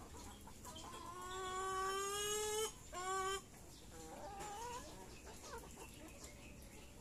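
Chicken giving one loud, drawn-out call that rises slightly over about two seconds, then a short second note, followed by softer wavering clucks from the flock as it feeds.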